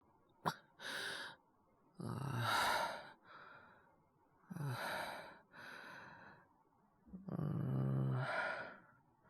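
Acted coughing in a male character voice: several harsh, rasping coughing fits with voiced catches and breaths between them, the sound of a bad cough from a cold. A sharp click comes about half a second in.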